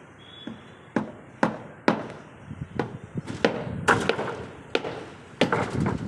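Steel reinforcing bars knocking and clanking during rebar work: about a dozen sharp, irregular strikes, coming closer together after the first second.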